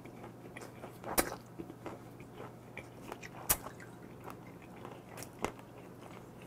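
Close-miked chewing of a mouthful of raw squid and crisp vegetables in cold broth: wet crunching with many small clicks and two sharper clicks, about a second in and again past three seconds. In the second half soju is poured from a glass bottle into a shot glass.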